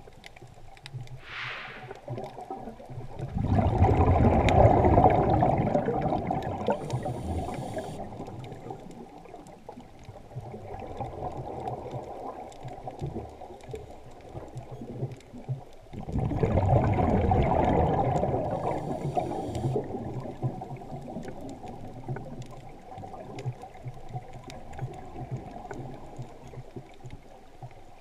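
A scuba diver's exhaled bubbles from the regulator, picked up underwater: two long bubbling bursts, about 3 seconds and 16 seconds in, each lasting about four seconds, with softer water noise between them.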